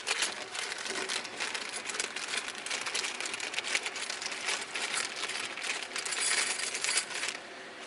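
Small metal brake parts, the new pad shims and hardware, clinking and rattling as they are handled, with some rustling. The clatter is dense and irregular and stops about seven seconds in.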